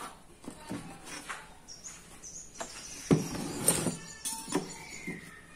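Scattered knocks and clicks of tools handled on a plywood worktable, with the loudest knocks about three seconds in as a corded drill is moved across the board.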